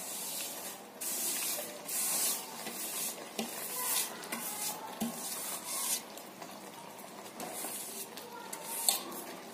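Handfuls of ghee-roasted vermicelli (sewai) dropped into hot sugar syrup, the syrup sizzling in several separate bursts of hissing as the strands go in.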